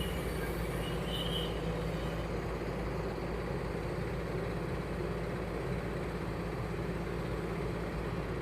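Heavy diesel engine running steadily at a constant speed, a low, even hum.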